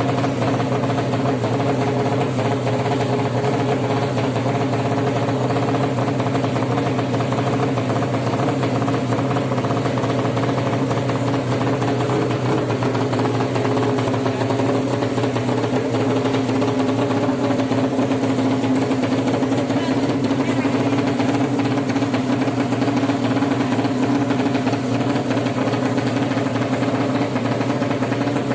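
Suzuki Satria FU motorcycle engine built out to 200cc for racing, idling steadily, with its idle creeping slightly higher about halfway through.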